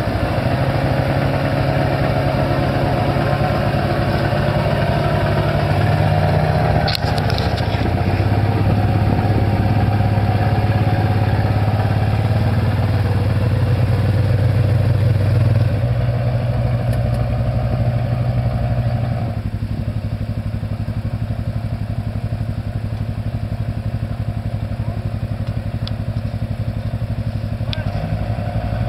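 Small off-road vehicle engine, most likely an ATV's, running steadily with its note shifting in steps with the throttle. About two-thirds of the way through it drops to a lower, quieter note. A single sharp knock comes about seven seconds in.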